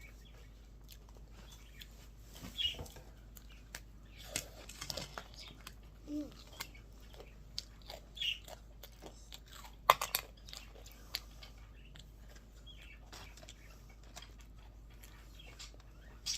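Mouth-close chewing and crunching on a chocolate ice-cream cone's wafer: scattered soft crunches and wet mouth clicks, with one sharper crunch about ten seconds in.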